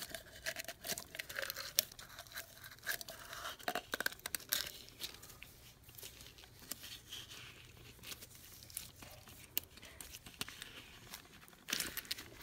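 A rag rustling and rubbing over the metal housing of an air impact wrench as it is wiped clean, with scattered light clicks and knocks as the parts are handled.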